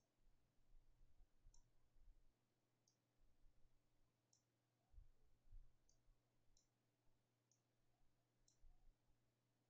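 Near silence with faint computer mouse clicks, about eight spread through, and a few soft low bumps, the strongest about five seconds in, over a faint steady hum.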